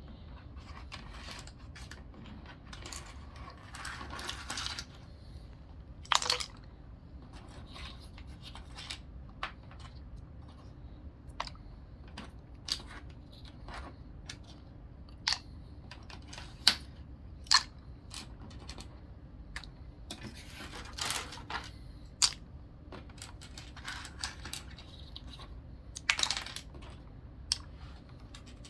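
Irregular sharp plastic clicks and clacks from keyboard keycaps and parts being handled, a few seconds apart. There are short scraping or rustling sounds in between, the longest around 4 seconds in and near 21 and 26 seconds.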